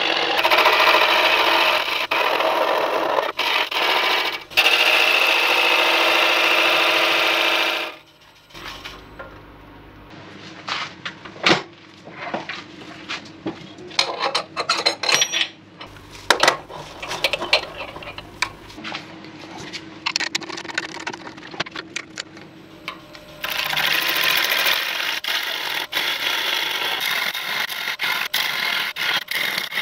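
Turning gouge cutting spalted silver birch on a spinning wood lathe, a loud steady scraping hiss of shavings. It stops about eight seconds in, giving way to scattered clicks and metal knocks while the workpiece is changed at the headstock. The cutting starts again near the end.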